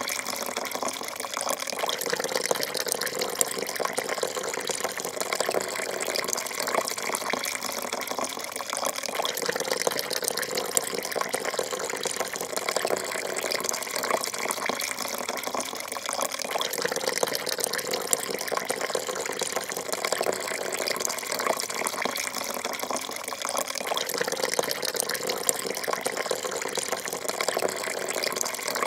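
Coffee poured in a thin, steady stream into a full porcelain cup, the stream landing in the liquid with a continuous trickling splash.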